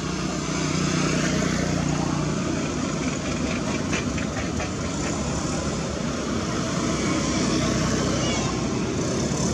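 Steady motor vehicle engine noise, running on without a break, with a few light clicks about four seconds in.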